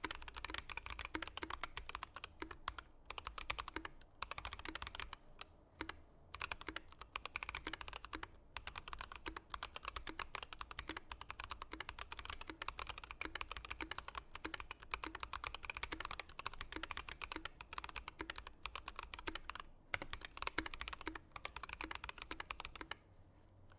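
Fast typing on a Skylong GK96s mechanical keyboard with Gazzew Boba U4T tactile switches (62 g) and PBT keycaps: a dense run of keystrokes with a few brief pauses, stopping about a second before the end.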